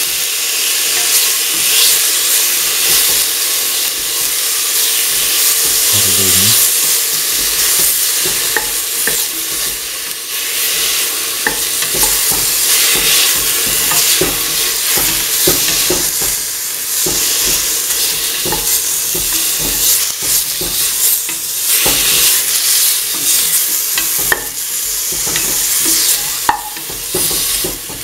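Duck meat pieces sizzling steadily in hot oil in a steel pan while being stirred, with frequent short clicks and scrapes of the utensil against the metal.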